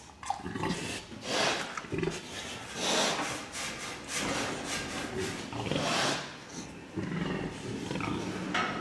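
Pigs squealing and grunting in a piggery: loud squeals every second or two over lower grunting.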